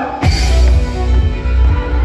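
Live band music led by a fiddle over a drum kit: a quieter passage breaks about a quarter second in, when the full band comes in loud on a strong beat with heavy low bass.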